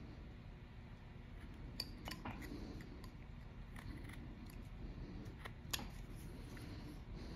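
Hand carving knife slicing small chips from a block of wood, faint scrapes and snicks with a few sharper clicks about two seconds in and again past five seconds.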